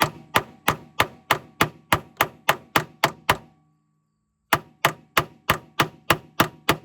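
Steady, rapid hammer blows on a tool driving out a rusted, stuck door hinge pin sleeve on a Jeep Wrangler JK, about three strikes a second, each with a short metallic ring. The hammering stops for about a second a little past halfway, then resumes at the same pace.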